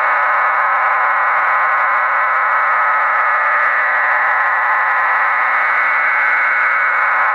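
Shortwave radio audio of the HM01 numbers station sending a data signal rather than voice: a steady, even hiss-like rush held in a narrow band of middle pitches, unchanging throughout.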